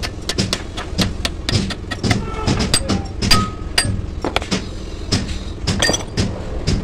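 Hand hammer striking the steel shaft of a truck bell-crank lever, quick repeated blows at about three a second, some with a short metallic ring, over a steady low hum.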